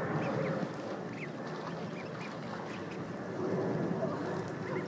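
Four-week-old mallard ducklings peeping: short, high rising chirps, several a second in places, over a steady background hiss.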